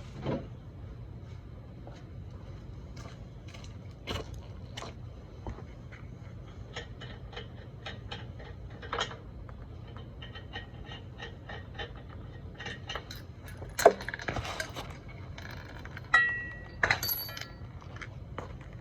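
Hand tools and metal parts clicking, knocking and clinking at irregular intervals during brake work, with a louder flurry of knocks about three quarters of the way through and a short ringing clink soon after.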